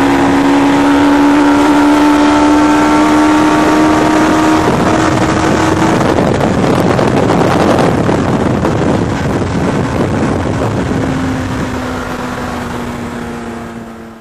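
Suzuki Hayabusa inline-four motorcycle engine of a Westfield Megabusa pulling hard at high revs, its pitch creeping up for several seconds, then a rougher, noisier stretch with wind rushing through the open cockpit, then a lower steady note that fades out near the end.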